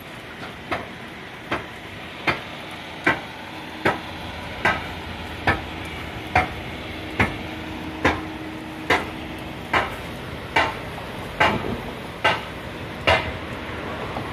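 A steady series of sharp knocks, about one every 0.8 seconds, over a continuous hiss.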